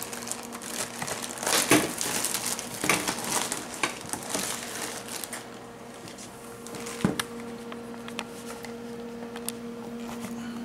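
Crinkling and rustling as a store-bought pie crust and its wrapping are handled, with scattered light clicks and one sharper click about seven seconds in. A steady low hum runs underneath.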